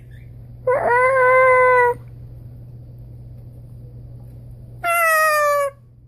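Two long calls, each about a second, traded back and forth as a blue-and-gold macaw and a person copy each other's calls. The first starts about a second in and the second comes near the end, falling slightly in pitch, over a faint steady hum.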